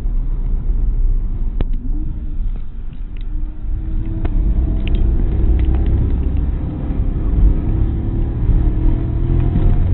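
Opel Corsa's engine and road rumble heard from inside the cabin at track speed, the engine note climbing slowly over several seconds as the car accelerates.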